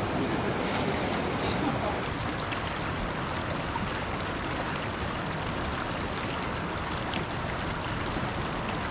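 Steady rushing of river whitewater rapids, changing slightly about two seconds in.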